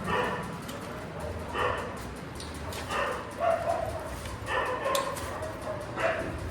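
A dog yipping repeatedly, short pitched yelps about once a second.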